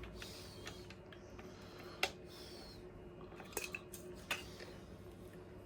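Light clicks and clinks of small hard parts being handled while fitting motorcycle indicators, with the loudest knock about two seconds in and a few more past the middle, and soft rustling between.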